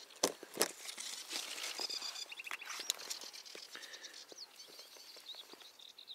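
Clicks and rustling of hands working a fishing hook and line close to the microphone while baiting with a worm, two sharp clicks near the start, with small birds chirping in the background.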